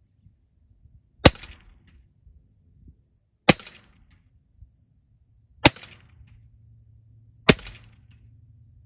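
Western Airguns Sidewinder .30 caliber PCP air rifle firing four single shots, about two seconds apart. Each shot is a sharp crack with a short echo, followed about half a second later by a faint tick.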